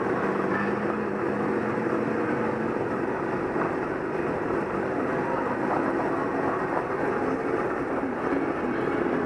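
Sherp ATV's diesel engine running steadily as it moves slowly through the mud, heard from on board.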